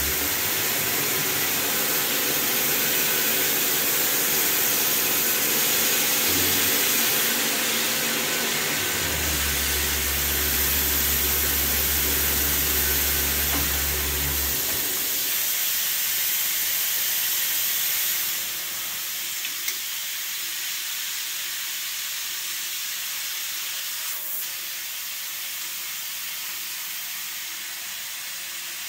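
Steady hiss of a Bijur SprayMist mist-coolant nozzle blowing shop air and coolant, over the steady hum of a Harrison 10-AA lathe turning a grade 8 bolt. The hum stops about halfway through, and the hiss grows quieter a few seconds later but keeps going.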